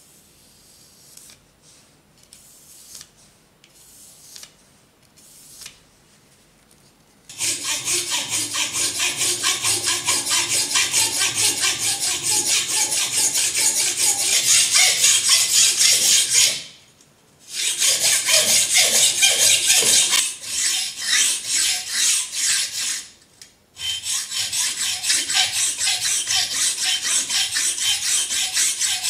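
Hacksaw cutting through a Japanese natural whetstone (Okudo suita): a fast, loud rasping back and forth, about three strokes a second, stopping briefly twice. Before the sawing starts, about seven seconds in, only a few faint scratches from scribing the cut line on the stone.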